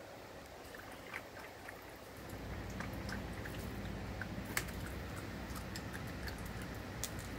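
American Eskimo Dog fishing ice cubes out of a bowl of ice water and chewing them: faint scattered clicks and crunches of ice, with a low rumble coming in about two seconds in.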